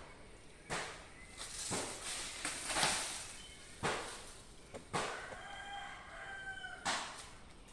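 A rooster crowing once, one held call of under two seconds starting about five seconds in, over a series of sharp knocks roughly a second apart.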